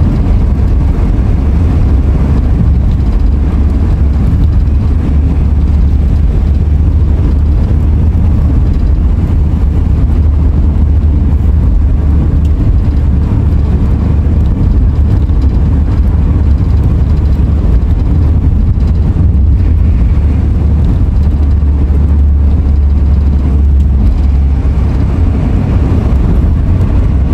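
Car driving along at a steady speed: a constant low rumble of engine and road noise with no change in pace.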